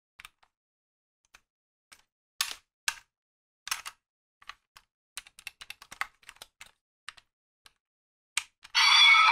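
Clicks and taps of the plastic DX Desire Driver toy belt being handled and turned over in the hands: a few scattered clicks, then a quick run of small clicks. Near the end, loud music cuts in abruptly.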